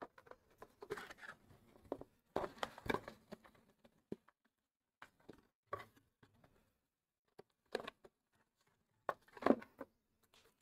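A cardboard box and a folded paper instruction leaflet being handled: irregular knocks, slides and rustles, with the loudest rustle near the end as the leaflet is pulled out.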